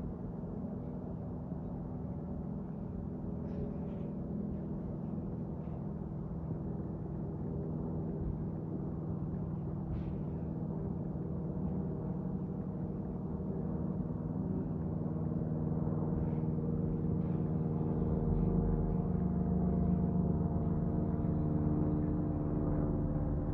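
An aircraft passing overhead, its engine a steady hum of several tones that grows gradually louder and is loudest near the end.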